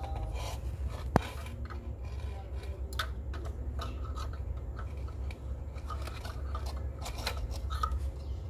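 Small screwdriver working the screws of a screw terminal block in a gate control panel, with wires pushed into the terminals: scattered clicks and scraping, one sharp click about a second in.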